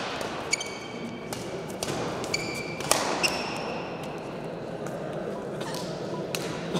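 Badminton play on an indoor court: sharp racket strikes on the shuttlecock at irregular intervals, with short high squeaks of court shoes between them.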